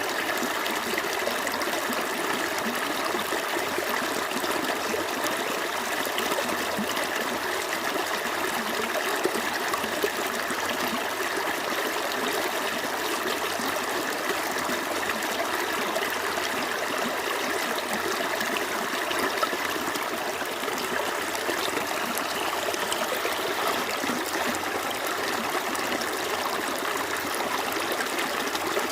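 A small stream flowing steadily over rocks, with continuous babbling and trickling water.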